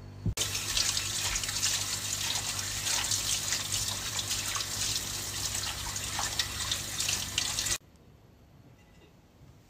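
Kitchen tap running hard into a sink, the water splashing off a plate held under the stream. It starts abruptly just after the beginning and cuts off suddenly near the end.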